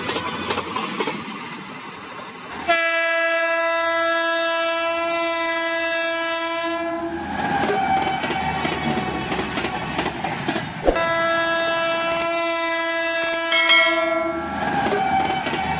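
Electric locomotive horn, the WAG-12's, sounding two long steady blasts of about four seconds each, the second starting about four seconds after the first ends, over the continuous running noise of the moving train.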